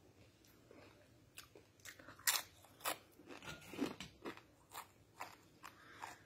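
Dry corn chips crunching as they are bitten and chewed: a run of irregular sharp crunches that starts about a second in.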